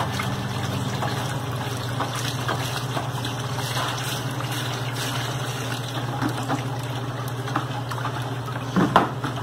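Dissolved caustic soda solution being poured from a plastic bucket into cooking oil and stirred with a stick, a steady trickling and splashing of liquid: the lye going into the oil to start saponification for homemade liquid soap. A louder knock near the end.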